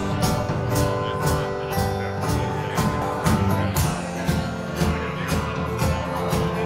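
Live band playing electric and acoustic guitars over a drum kit, with a steady beat of about two hits a second; no singing.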